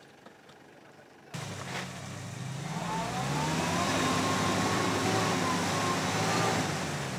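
Quiet outdoor background, then a sudden cut to a Jeep's engine revving hard as it ploughs through deep mud. The engine note climbs and then holds, over the hiss and splatter of the tyres throwing mud and water.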